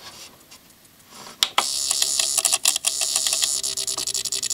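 Yamaha DVD-E600 DVD player's disc drive mechanism making its fault noise while failing to read the disc: a single click about a second and a half in, then a fast, steady run of ticks over a buzz. The laser is not reading and the disc is not spinning properly.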